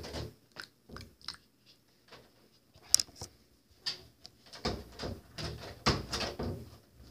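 Irregular clicks, knocks and rustling handling noises, with a sharp click about three seconds in and a longer spell of fuller noise near the end, as the ingredients are handled and mixed during slime making.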